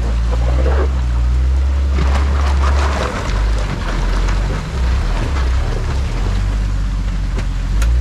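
Jeep Wrangler's 4.0-litre straight-six engine running at low revs as it crawls over rocks, with crunches and knocks from the tyres on stone. The steady low drone turns uneven about three seconds in.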